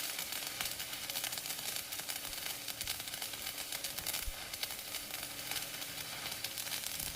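Electric arc welding: a steady crackling sizzle of the arc as a stub is welded onto a steel part.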